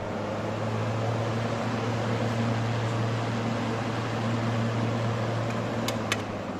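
Two axial fans of a DCX ICP40 dry cooler running at full speed: a steady rush of air with a low hum, growing slightly louder over the first second. Two sharp clicks near the end.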